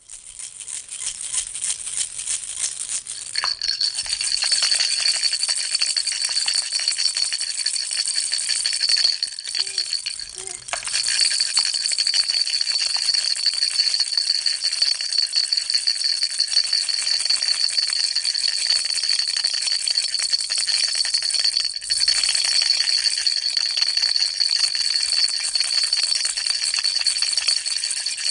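Baby rattle shaken without pause, a dense, fast, high-pitched rattling with a steady bright ringing tone running through it. It breaks off for a moment three times.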